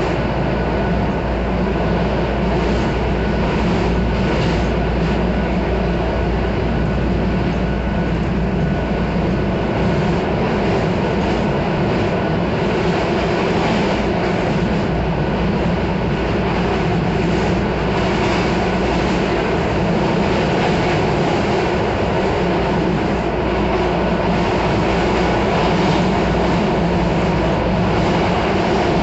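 Miami-Dade Metrorail train car running along the track, heard from inside the car: a steady rumble of wheels on rail with a faint, steady high tone over it.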